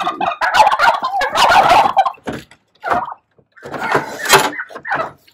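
A flock of turkeys gobbling and calling noisily, with a few sharp wooden knocks as folding crate panels are handled.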